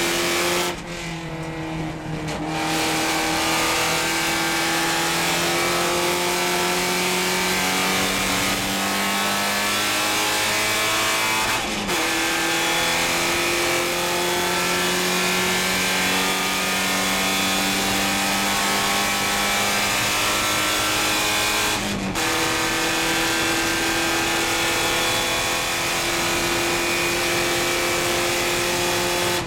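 Porsche 944 Spec race car's 2.5-litre four-cylinder engine heard from inside the cockpit under hard acceleration. It lifts off briefly about a second in, then pulls with slowly rising revs, broken by two quick upshifts about a third and two-thirds of the way through.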